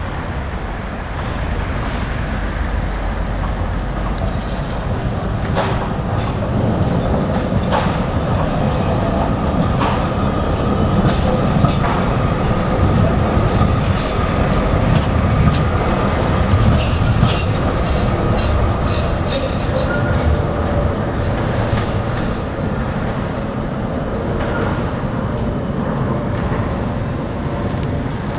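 Tatra T5C5 articulated tram approaching and passing close by: a steady running rumble with wheels clacking over rail joints and points, and a faint steady whine. It grows loudest about halfway through as the tram goes past, then fades slightly.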